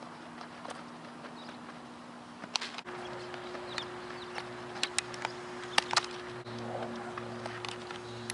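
Sharp pops and cracks from an infield ground-ball drill: a baseball being hit and smacking into a leather glove, with cleats scuffing on the dirt infield. The loudest pops come about two-thirds of the way in, and a steady low hum starts about three seconds in.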